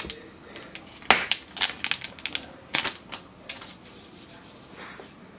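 Clear plastic shrink-wrap on a phone box crinkling and tearing as it is peeled off by hand: a quick run of sharp crackles and rustles between about one and three and a half seconds in.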